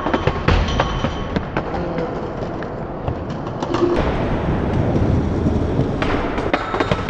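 Skateboard wheels rumbling over concrete, with many sharp clacks and knocks of the board and trucks, thickest in the first second and again near the end.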